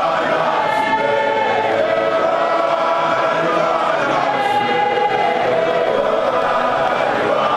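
Large congregation of men singing a hymn together without instruments, the voices holding long notes and sliding between pitches.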